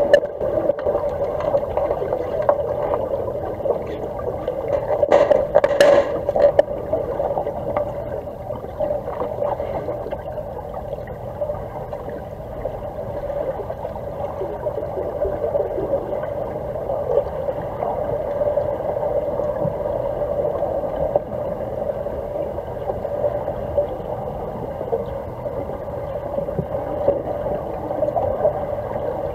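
Underwater pool ambience heard through a submerged camera: a steady low hum and water noise, with a few sharp clicks about five to six seconds in.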